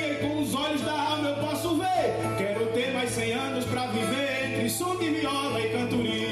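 Repente music: a viola played with a man singing over it in wavering, sliding notes, above a steady low hum.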